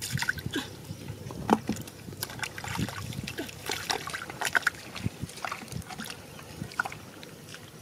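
Small irregular splashes and sloshing in shallow muddy water.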